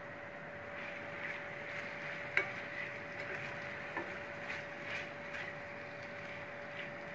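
Diced raw chicken breast sizzling in a frying pan with onion and bell pepper, with a spatula scraping and tapping the pan as the pieces are stirred. A sharp knock about two and a half seconds in is the loudest sound, over a steady hum.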